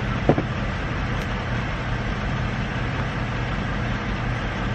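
Steady low rumble of a parked tractor-trailer's diesel engine idling, heard from inside the cab. There is one brief tap about a third of a second in.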